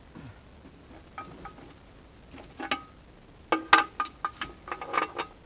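Metal-on-metal clicks and clinks while a steel excavator bucket pin is greased with a grease gun. A few faint ticks come first; about three and a half seconds in, a quicker run of sharp, ringing clinks begins.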